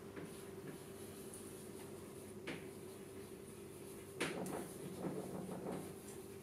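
Chalk on a blackboard while words are written: a sharp tap about two and a half seconds in, another about four seconds in, then a stretch of scratching strokes. A low steady room hum runs underneath.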